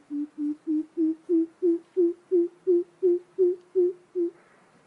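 Greater coucal calling: a series of deep hoots, about three a second, that rise slightly in pitch and grow louder before stopping about four seconds in.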